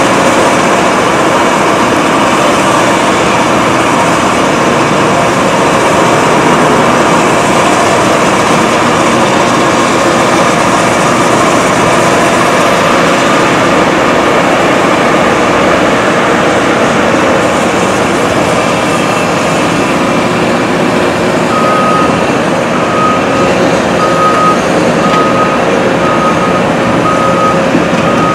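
Caterpillar hydraulic excavator's diesel engine running steadily as it works. In the last several seconds a travel alarm beeps about once a second.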